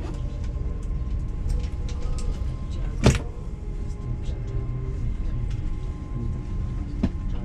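Cabin noise inside an LNER Azuma high-speed train drawing slowly into a station: a steady low rumble with a faint steady hum, a few small clicks, and one sharp knock about three seconds in.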